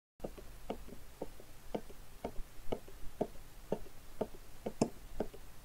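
Steady footsteps, about two a second, over a faint hiss.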